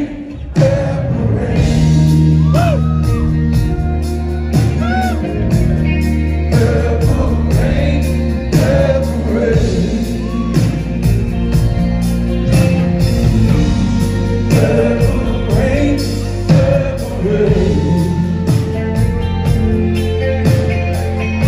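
Live band playing, with sustained bass and chords under singing voices whose pitch glides up and down. The music swells louder about half a second in.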